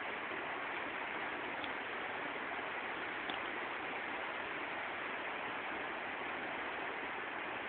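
River water rushing steadily over rocks: an even, unbroken rush.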